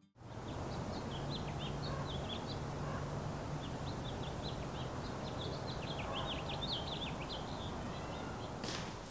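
Outdoor spring ambience: small birds chirping and twittering in quick short notes, busiest a little past the middle, over a steady background hiss and faint low hum.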